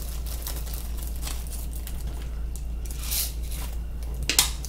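Small clear plastic zip-lock bag crinkling and rustling as it is handled, with a few brief crackles, the sharpest near the end, over a steady low hum.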